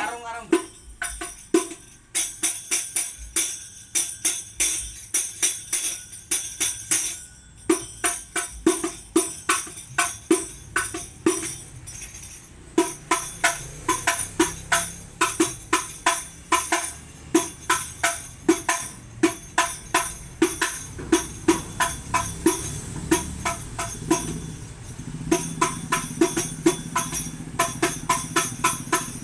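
Hadrah frame drums (rebana) with metal jingles played in a fast rhythmic pattern, each stroke giving a ringing drum tone and a bright jingle shimmer, with a few short breaks between phrases.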